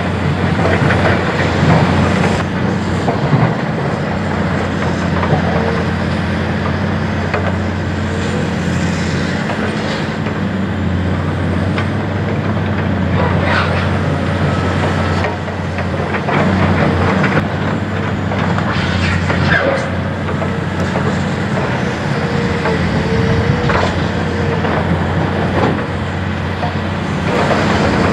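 Caterpillar hydraulic excavators' diesel engines running steadily under load, with knocks and clatter of broken concrete being scooped and dropped by the buckets at irregular moments.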